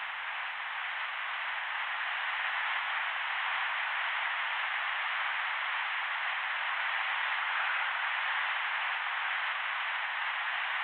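Steady hiss of static from a ghost-hunting recorder, left running while waiting for a spirit's answer. It swells slightly over the first couple of seconds, then holds.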